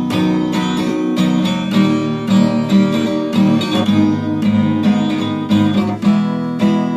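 Acoustic guitar strummed in a steady rhythm, chords ringing between verses of a song, with no singing.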